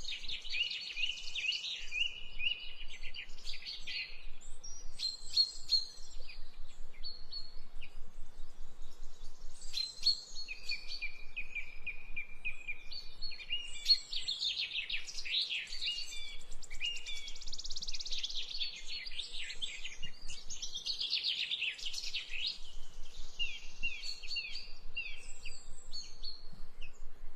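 Several birds chirping and calling at once in a continuous chorus: many short high chirps overlapping, with a few fast trills of one repeated note.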